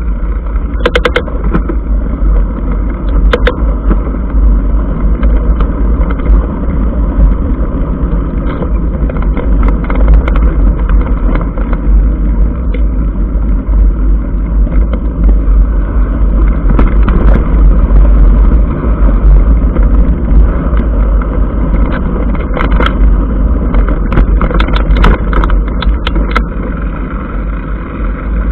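Mountain bike rolling fast over a gravel dirt track, heard through an action camera's microphone: a steady, loud rumble of wind buffeting and tyre noise, with frequent short rattles and clicks as the bike jolts over stones and bumps.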